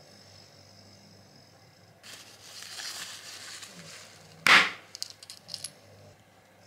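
Tissue paper rustling as a glass ampoule is wrapped in it, then one sharp loud crack as the ampoule's glass neck is snapped off, followed by a few small clicks.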